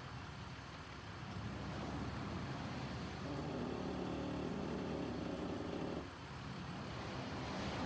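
Low, steady rumble of a motor vehicle running nearby. It swells for about three seconds in the middle, then drops off abruptly about six seconds in.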